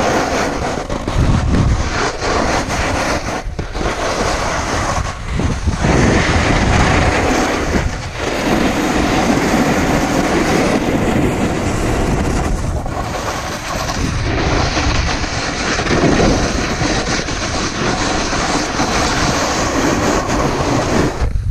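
A snowboard sliding and scraping over firm snow on a descent, as a loud continuous rushing scrape with short lulls every few seconds.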